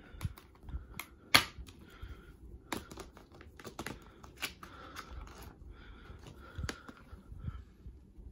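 Plastic DVD and Blu-ray cases being handled: an irregular string of sharp clicks and taps with some rustling between them, the loudest click about a second and a half in.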